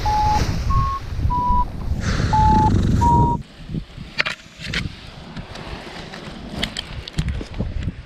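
Wind buffeting the microphone, with five short electronic beeps from a paragliding variometer, their pitch shifting up and down from beep to beep. About three and a half seconds in the wind noise drops away sharply, leaving scattered knocks and rustles of harness and gear.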